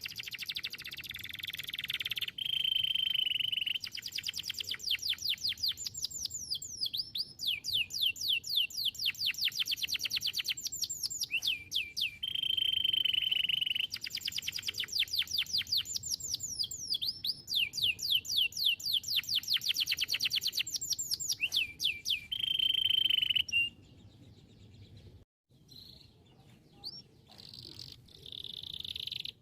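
Domestic canary singing a long song of rapid, repeated down-sweeping notes alternating with steady high trills. The song breaks off about three-quarters through, with only a few faint notes, then starts again near the end.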